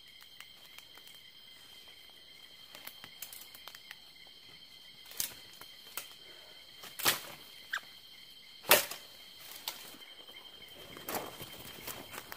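Night insects chirring in a steady high-pitched drone, broken by several short, sharp sounds in the second half, the loudest about two-thirds of the way in.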